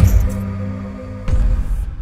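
Electronic logo-intro music: a low sustained drone with a deep hit at the start and a second deep hit with a short swoosh about a second and a quarter in, each ringing on afterwards.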